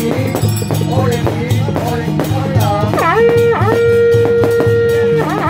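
Amplified music with a steady beat and a melody line that holds one long note from about three seconds in until about five.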